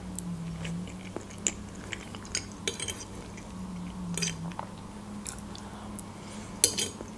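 Close-up eating sounds: soft, wet chewing of herring-under-a-fur-coat salad, with scattered light clinks and scrapes of a metal fork on a plate.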